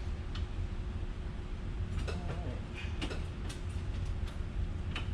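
Steady low background machinery hum, with a faint steady tone over it, broken by a few scattered short clicks and light knocks.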